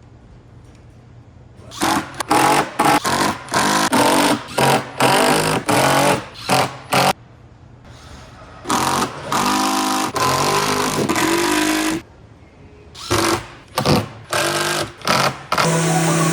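Woodworking power tools running in a series of short, loud bursts, switched on and off again and again, some with a pitched motor whine.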